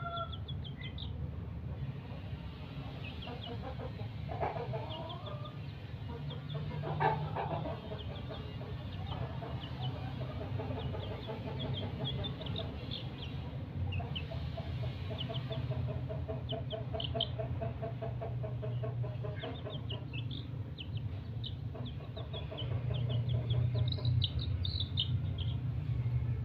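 A young chicken peeping over and over in short, high cheeps, with stretches of quick, lower clucking notes, over a steady low rumble.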